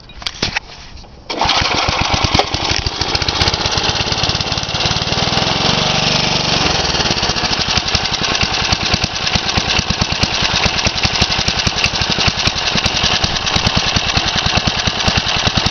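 1978 Briggs & Stratton single-cylinder lawnmower engine starting from cold: after a few short sounds it catches about a second in and then runs steadily with a fast, even firing beat.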